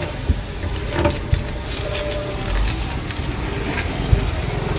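Light metal clicks and knocks from a fold-out sheet-metal monitor tray on an ambulance stretcher base being folded away, a few separate knocks over a low steady rumble.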